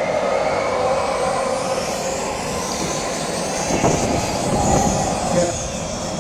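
Steady murmur of a large outdoor crowd, with a zipline trolley running along its steel cable overhead. The trolley gives a rolling whir that swells about four seconds in and fades over the next second or so.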